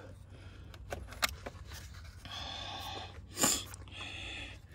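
Small metallic clicks and taps of battery terminal hardware being handled, with a man breathing heavily and a sharp sniff about three and a half seconds in.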